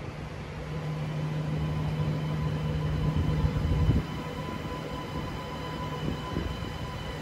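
Sydney Metro electric train running in along the platform: a low rumble with a steady electric hum and thin higher whining tones. The rumble grows to its loudest about three to four seconds in, then drops away suddenly.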